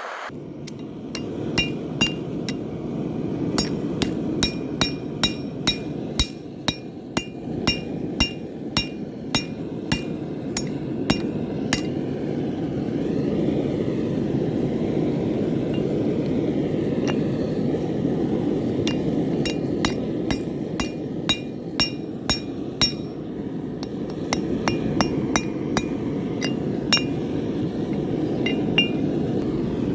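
Hammer blows ringing on an anvil as hot steel for a railroad-spike knife is forged: runs of strikes at roughly one to two a second, with a break in the hammering around the middle, over a steady low rushing noise.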